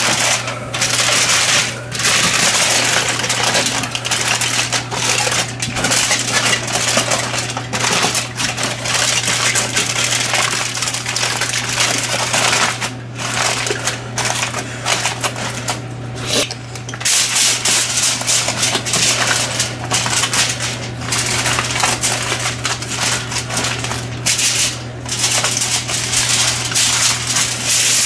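Aluminum foil being folded and crumpled by hand, a dense continuous crinkling with a few short pauses, over a steady low hum.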